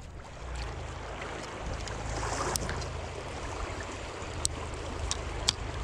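Steady rushing of a fast-flowing river running high with spring water, over a constant low rumble, with a few faint clicks scattered through.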